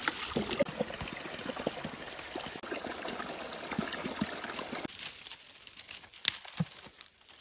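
Mountain spring water pouring and trickling, which stops about five seconds in; a few soft knocks and rustles follow.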